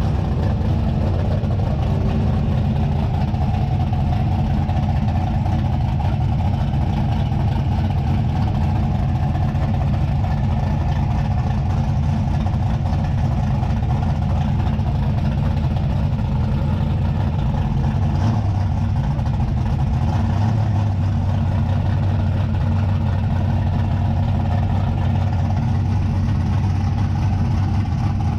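Race pickup truck's engine idling steadily at the drag strip's starting line, a low, even engine note.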